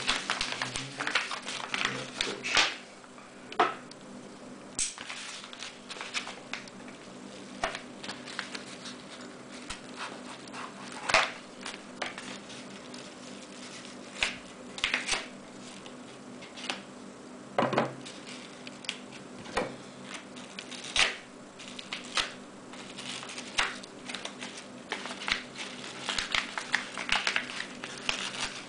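Scissors cutting open a paper mailer envelope, with the paper crackling and rustling as it is turned over and handled. The sound is a run of irregular sharp snips and crackles.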